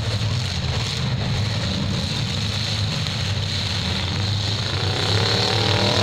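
Several demolition derby cars' engines running together in a steady low rumble, with one engine revving up, rising in pitch, near the end.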